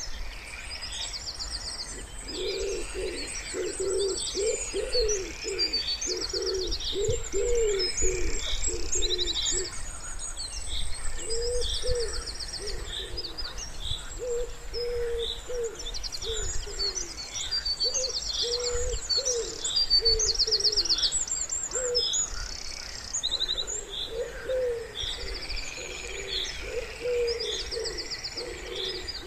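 Wood pigeon cooing in repeated phrases, with small songbirds chirping and trilling high above it throughout.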